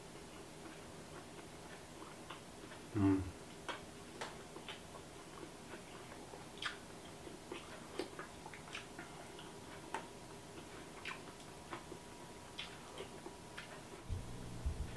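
Light, irregular clicks of a spoon and chopsticks against ceramic bowls while eating, with one duller knock about three seconds in. A low rumble comes in near the end.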